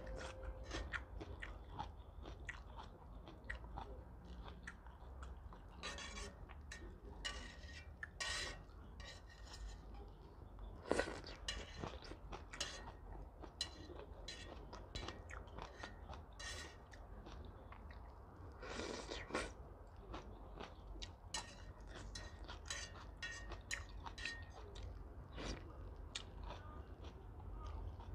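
A person eating vermicelli noodles with chopsticks: close mouth sounds of chewing, with a few longer slurps and many small clicks throughout.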